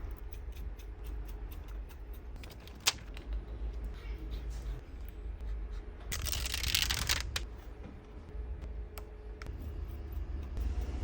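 Small clicks and handling noises of tools and phone parts being worked at a repair bench, with a sharper click about three seconds in and a brief hiss lasting about a second past the middle, over a low steady hum.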